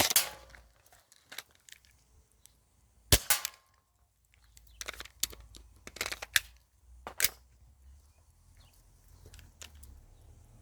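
Airsoft guns firing single sharp shots, with the loudest right at the start, about three seconds in and about seven seconds in. Quieter clicks and knocks of gun handling fall between them.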